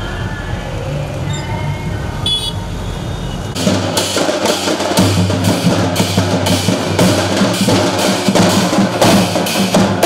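Low vehicle rumble with street noise, then about three and a half seconds in loud drumming starts: a steady beat of about three strokes a second from procession drums.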